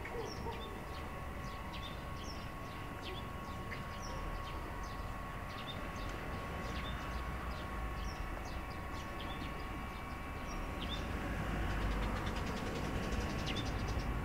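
Low rumble of vehicles on an overhead bridge, swelling from about ten seconds in, over a steady hum. Small birds chirp throughout.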